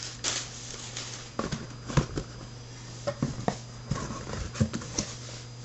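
A package and its contents being handled: scattered light taps, clicks and rustles, about a dozen over a few seconds, over a steady low hum.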